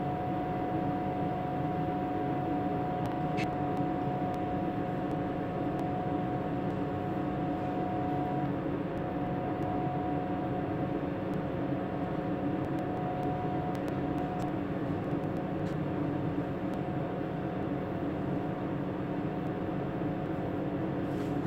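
Steady mechanical drone with a thin, steady high whine over it; the whine stops about two-thirds of the way through while the drone runs on.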